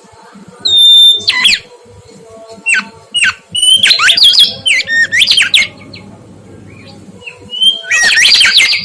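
Mangrove whistler singing: loud phrases of quick, steeply sweeping whistled notes in three bursts, about a second in, around the middle, and near the end.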